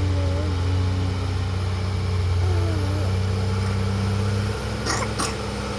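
Heavy construction machine's diesel engine running steadily with a low hum, with two sharp clanks about five seconds in.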